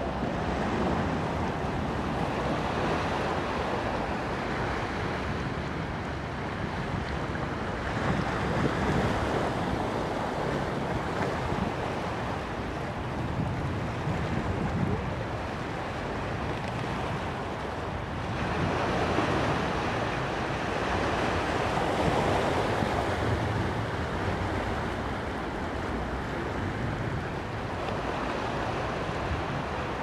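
Sea surf washing over a rocky shore, with wind buffeting the microphone. The wash swells and eases, louder about eight seconds in and again for several seconds from about eighteen seconds in.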